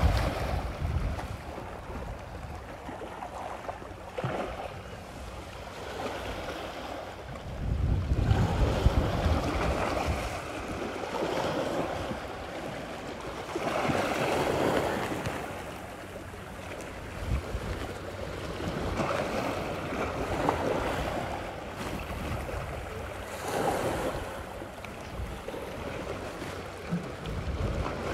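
Wind gusting on the microphone over a noisy outdoor background, swelling and easing every few seconds, with the strongest gust about eight seconds in.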